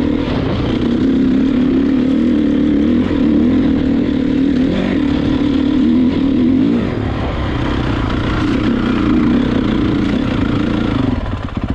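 Dirt bike engine running at steady high revs, easing off briefly about seven seconds in and picking up again, then dropping to a pulsing idle near the end.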